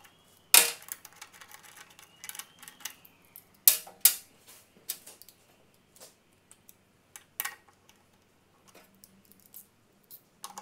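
Sharp metal clanks and small clicks of hand tools and bolt hardware handled on a steel fixture table while rubber mounting feet are bolted on. The loudest clank comes about half a second in, with more around four seconds and seven and a half seconds.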